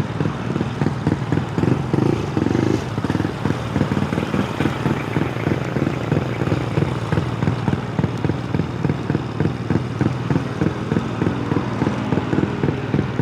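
Honda Grom's 125 cc single-cylinder engine running steadily, with a regular pulsing in level.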